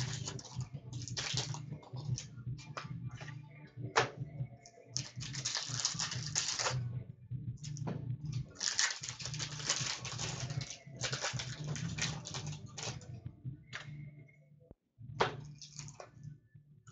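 Hockey card packs and cards being handled: stretches of crinkling and rustling with sharp clicks and taps between them, over a low steady hum.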